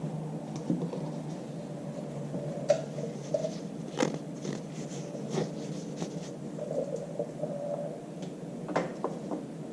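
Scattered light clicks and taps of parts and tools being handled on a workbench, over a steady low hum.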